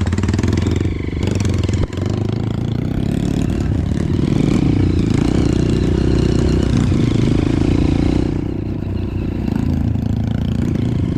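Honda CRF150L trail bike's single-cylinder engine running steadily as the bike is ridden.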